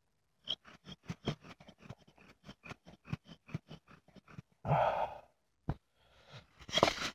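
Willow bow drill being worked with a shoelace cord: a fast run of faint clicks and ticks as the spindle jerks and slips in the cord instead of biting, then a short breathy exhale and a few sharper knocks of wood near the end.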